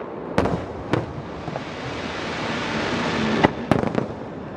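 Aerial fireworks bursting: sharp bangs about half a second and a second in, then a swelling crackle that builds to two more bangs close together near the end.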